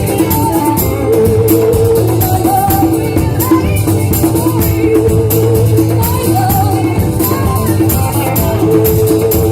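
Live band music: a sung melody over a steady drum beat and accompaniment.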